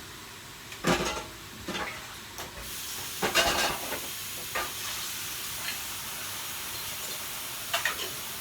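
Steady hiss of steam from a covered pot of seafood boil on the stove, with several clanks of a metal pot lid and utensils, the first ringing briefly.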